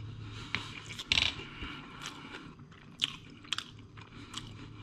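A person chewing a mouthful of fried rice and kimchi, with scattered short clicks and crunches from the mouth over a steady low hum.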